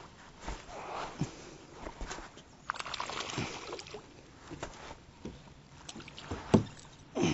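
Scattered knocks and rustles of rod and line against a plastic kayak hull, with light water splashing, as a small hooked largemouth bass is brought alongside and lifted by the line. There is a noisier patch about three seconds in.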